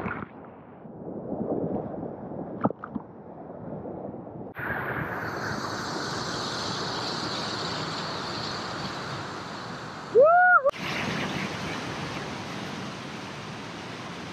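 Whitewater rapids rushing, at first dull and muffled with the camera down in the foaming water, then, after an abrupt change, a steady bright hiss of the rapid. About ten seconds in, a short loud shout rises and falls in pitch over the water.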